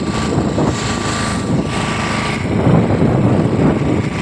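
A small fishing boat's motor running steadily, a continuous rough noise without pauses.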